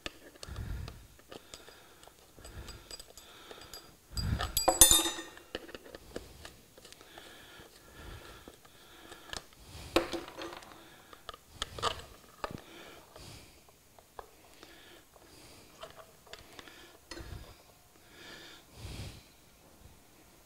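Hands working the bolts into a Wheeleez balloon tire's hub, with scattered knocks and rubbing against the soft tire. A cluster of sharp metallic clinks with a little ringing comes about four to five seconds in and is the loudest part.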